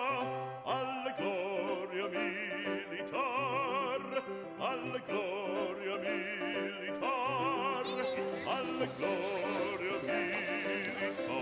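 Background opera music: a singer's voice with strong vibrato over an orchestra.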